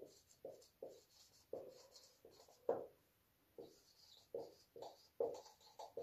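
Marker pen writing on a whiteboard: a dozen or so short, faint strokes, one after another.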